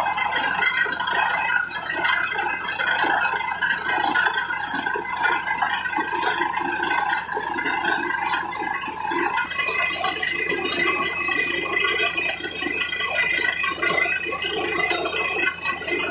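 Truck-mounted borewell drilling rig running as it drills: a steady machine drone with several high, held whining tones, along with slurry gushing from the borehole. The sound changes a little about nine seconds in.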